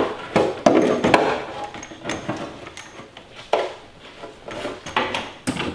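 Irregular knocks, clunks and scraping as parts are worked loose and handled on a go-kart frame, the loudest in the first second or so.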